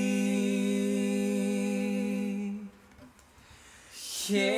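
Two male voices holding the last sung syllable in harmony, a steady held note; the higher voice drops out after about two and a half seconds and the lower one just after. A short near-silent gap follows, then the singing comes back in near the end.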